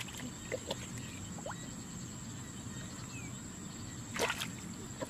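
Hands splashing and squelching in shallow muddy water while grabbing for fish: a few small wet splashes, then a louder splash about four seconds in.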